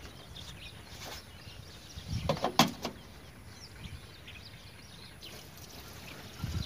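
Diesel fuel poured from a plastic jug through a funnel into a tractor's fuel tank, faint, with a brief clatter of the jug and funnel being handled about two and a half seconds in.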